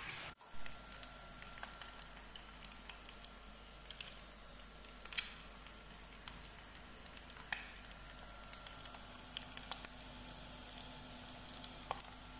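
An egg frying in a pan: a quiet, steady sizzle dotted with scattered crackles and pops.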